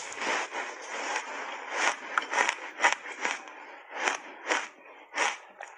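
Crunching of a big bite of refrozen, reshaped ice coated in matcha powder being bitten and chewed close to the microphone: a crackly bite at the start, then sharp crunches about twice a second.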